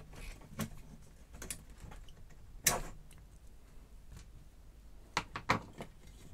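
Scattered small clicks and knocks of pliers and hands working a plastic connector on a BBC Micro power supply board, with one sharper click about two and a half seconds in and a quick run of clicks near the end.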